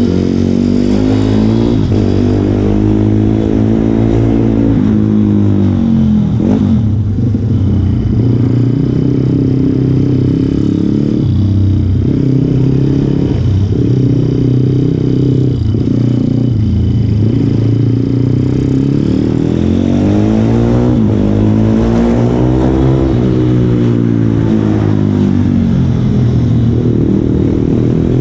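Go-kart engine at racing pace, heard from on board: its revs repeatedly drop into the corners and climb again out of them, lap after lap.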